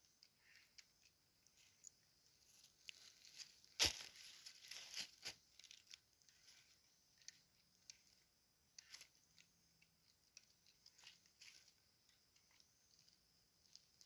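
Faint forest ambience: scattered small crackles and clicks, with one sharper snap about four seconds in, over a faint steady high hiss of insects.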